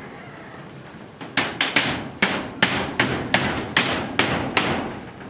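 Hammer blows: about a dozen quick, sharp strikes at roughly three a second, starting about a second and a half in.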